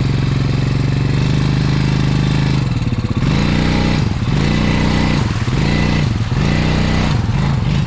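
Four-wheeler (ATV) engine running at a steady low speed, then revving up and dropping back about once a second, five or six times, as the throttle is worked to creep through a mud hole.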